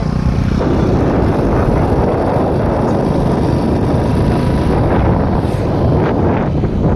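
Wind buffeting the microphone of a phone carried on a moving open vehicle, with the vehicle and road noise running underneath.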